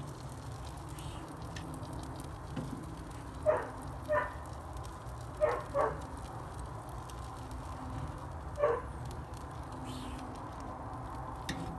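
A dog barking five times, in short single barks with pauses between them, two of them close together in the middle, over a steady low background rumble.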